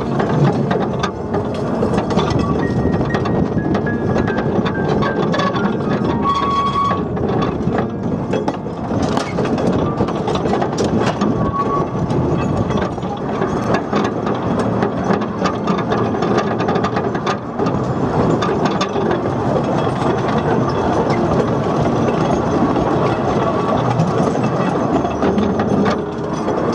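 A 2 ft narrow gauge tramway train running along the track, heard from on board the open carriage: a steady rattle and rumble of wheels on rail with frequent clicks over the rail joints, and a couple of brief high squeals, one about six seconds in and another near twelve seconds.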